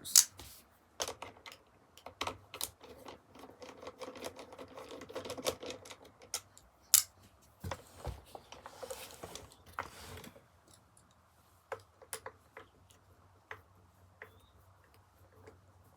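Screws being taken out of a Kirby Sentria II vacuum's back housing with a screwdriver: a run of sharp clicks and small rattles of tool, screws and plastic, with loud knocks near the start and about seven seconds in, thinning out to lighter clicks in the last few seconds.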